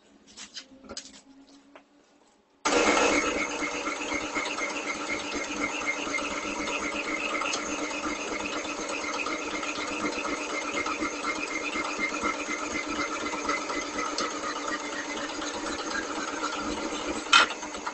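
Horizontal metal-cutting band saw starting up about three seconds in and running steadily as its blade cuts through clamped mild-steel bar, with a quick regular ticking in its sound. Near the end a sharp clack, and the saw stops.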